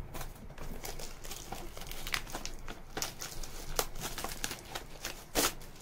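Plastic wrapping being torn and pulled off a product box, crinkling and crackling in irregular bursts, with the sharpest crackle near the end.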